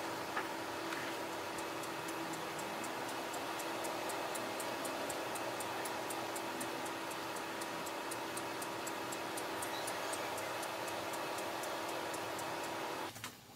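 The ParaGripper's motors running in footage sped up four times: a steady hum with an even ticking of about four ticks a second. It cuts off suddenly near the end.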